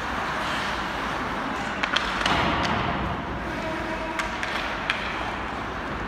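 Ice hockey game in play: a handful of sharp clacks of sticks and puck over a steady wash of rink and crowd noise.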